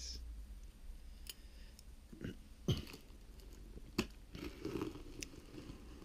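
Hands handling a cardboard box wrapped in clear plastic tape: a few sharp taps and knocks, the loudest a little under three seconds in, with soft rustling of the plastic wrap.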